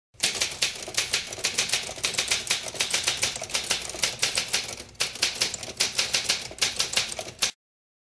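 Typewriter keys striking in a fast, uneven run of clicks, about six a second, with a brief pause about five seconds in, then stopping abruptly near the end.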